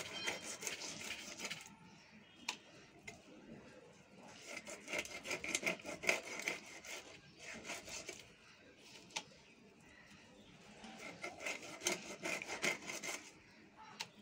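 Snakehead fish being cut into steaks on an upright boti blade: rasping, sawing strokes as the fish is pressed and drawn through the blade. The strokes come in three spells with quieter pauses between, and there are a couple of sharp clicks.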